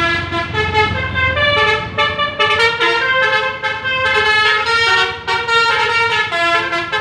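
Telolet basuri, a bus's multi-tone musical air horn, playing a quick melody of short stepped notes, with the bus engine running low underneath, strongest in the first second or so.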